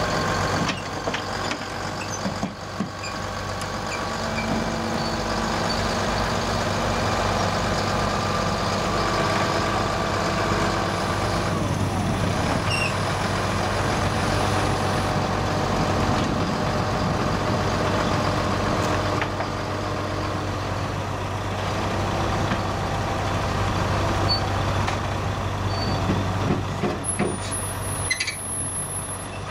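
Volvo articulated dump truck's diesel engine running steadily under load as the truck climbs the ramps onto a lowbed trailer. A short high hiss comes near the end.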